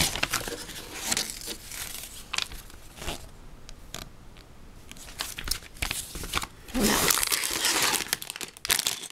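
Paper pages of an instruction booklet rustling as they are turned and handled, then a clear plastic bag of Lego pieces crinkling, loudest from about seven seconds in.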